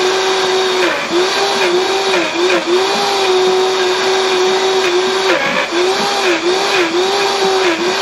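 Vitamix Professional 500 blender running while its tamper pushes thick whipped cream down into the blades, churning the cream so the butter separates from the liquid. The motor's steady whine dips in pitch briefly again and again and recovers each time.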